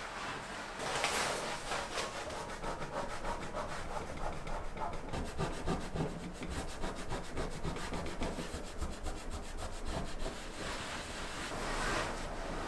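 A cloth rubbing hard back and forth across a wooden tabletop in rapid repeated strokes, scrubbing off drawing marks left on the wood.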